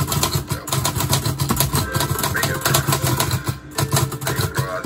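Fast typing on an Olivetti Lettera 25 manual portable typewriter: a steady run of type bars striking the platen, several keystrokes a second, each with a clack and a dull thud from the machine's body.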